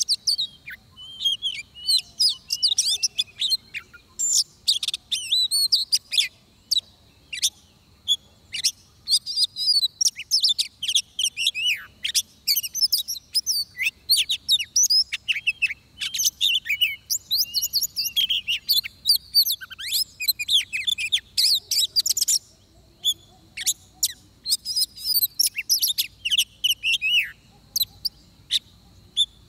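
Oriental magpie-robin singing a rich, varied song of quick whistles and chirps, in long phrases broken by brief pauses.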